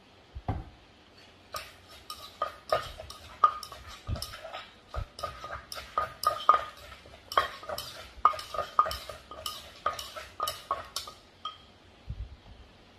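Wooden pestle pounding papaya salad in an earthenware mortar: a quick, uneven run of knocks and clinks, about two a second, that stops shortly before the end.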